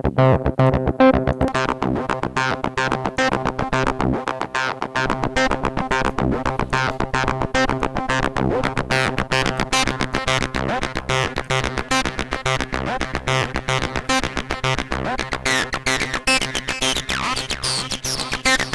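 A TB-303-style acid synth bassline (ABL3 emulation) runs as a fast sequence of notes with slides and accents, played through distortion so it sounds gritty and buzzy. Near the end its upper tones sweep up and down.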